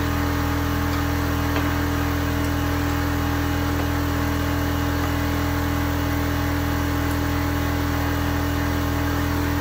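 A motor running steadily, with an even hum and hiss that does not change in pitch or loudness.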